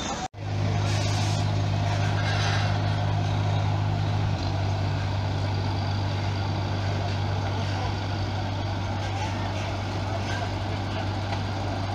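Heavy diesel truck with a refrigerated semi-trailer running with a steady low hum at low revs while it manoeuvres. The hum shifts slightly about four seconds in.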